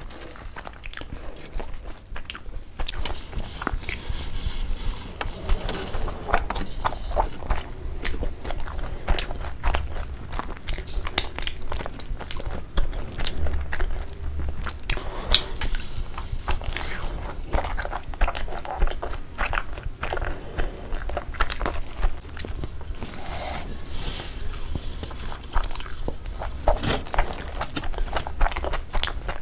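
A person biting into and chewing a large frankie wrap close to the microphone: continuous wet chewing with frequent small crunches and clicks.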